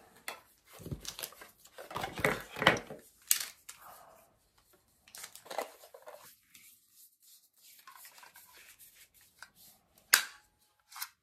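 Handling noise from a handheld wireless microphone: rustling and small plastic clicks as its twist-off battery compartment is worked, with one sharp click, the loudest sound, about ten seconds in.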